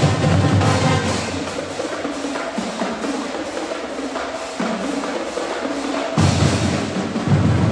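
Marching band playing: a percussion-led passage of sharp, dry strikes with the brass held back, then the drums and brass come back in full about six seconds in.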